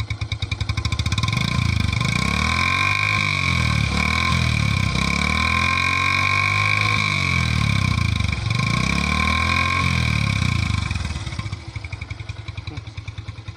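Yamaha Byson's single-cylinder four-stroke engine revved through an exhaust cut down to a short open pipe with the muffler section removed. It rises from idle about a second in, is held at raised revs that swing up and down a few times, and drops back to idle near the end.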